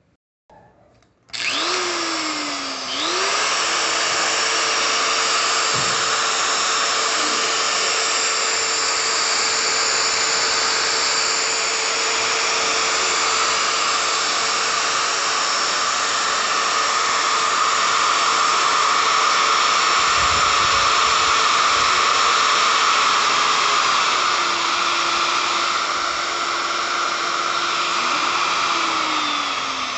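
Bosch industrial die grinder switched on about a second in and running free at high speed with a steady whine. Its pitch drops slightly in the last few seconds, and it is switched off near the end and spins down.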